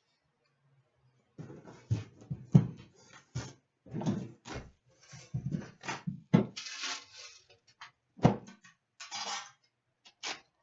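A metal hockey card tin being handled and opened: a string of sharp knocks and clatters, with a couple of longer rustling stretches of its packaging.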